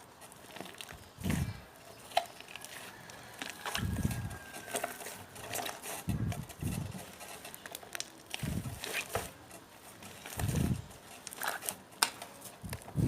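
Slime being squeezed and worked by hand: a low squelch every couple of seconds, with small sticky clicks and crackles in between.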